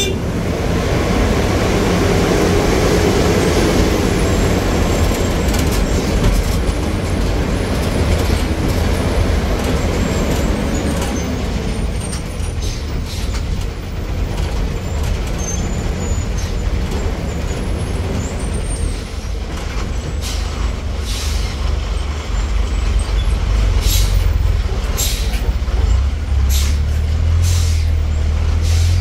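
Bus engine running and cabin noise heard from inside a bus going down a steep hill road: a steady low rumble with road and rattle noise. Several short, sharp sounds come in the last third.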